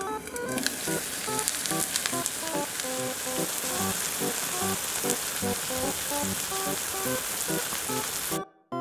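A flour-batter pancake of chikuwa and green pepper sizzling steadily in a frying pan, with light background music notes over it. The sizzle cuts off suddenly near the end, leaving only the music.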